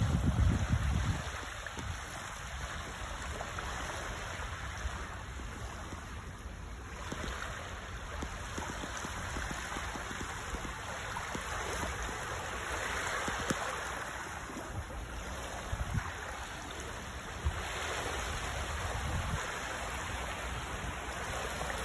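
Small waves lapping and washing onto a shallow sandy shore, a steady wash of water that swells a couple of times. A low rumble of wind on the microphone in the first second or so.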